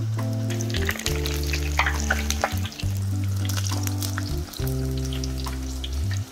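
Batter-coated stuffed green chillies deep-frying in a large kadai of hot oil, sizzling with many small pops and crackles. Background music with held low notes runs underneath.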